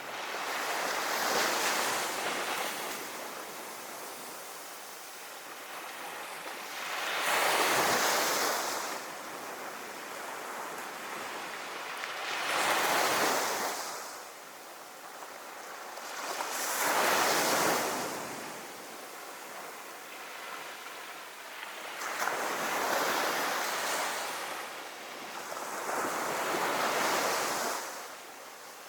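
Sea waves breaking and washing up on a sandy beach, the surf swelling and fading about six times, every four to six seconds.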